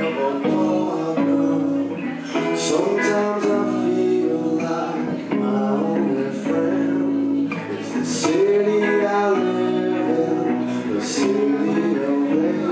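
A band playing a song, with a man singing over guitar accompaniment.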